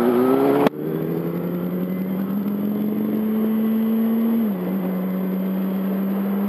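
Yamaha R1's inline-four engine pulling hard with its pitch rising, cut off sharply under a second in; it then runs at a steady, slowly rising pitch that drops once about two-thirds through, as on an upshift, under rushing wind.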